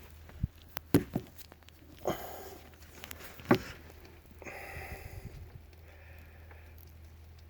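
Handling noises: a few sharp knocks and two short stretches of rustling over a low, steady hum.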